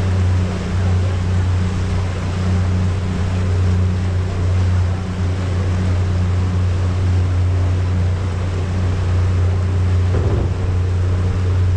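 Small passenger ferry's engine running with a steady low drone, under a constant rush of water.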